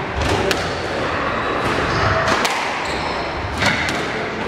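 Squash rally: the ball cracks off rackets and the walls of a glass-backed court four times, about a second apart, echoing in the hall. Shoes squeak briefly on the wooden floor near the middle.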